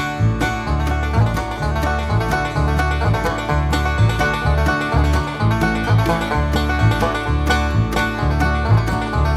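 Background music: upbeat bluegrass-style tune with rapidly plucked banjo and guitar over a repeating bass line.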